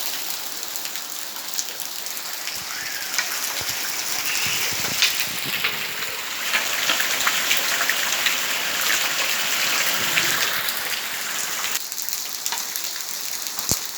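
Rain falling: a steady hiss with many individual drops tapping on surfaces. It gets heavier about three seconds in and eases again near the end, with one sharp tap just before it finishes.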